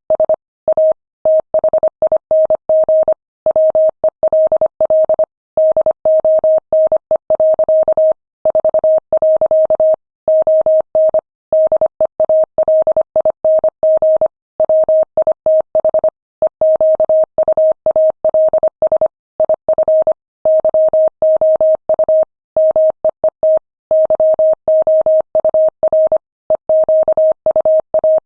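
Morse code sent at 25 words per minute: a single steady mid-pitched beep keyed on and off in rapid dots and dashes, with short pauses between words.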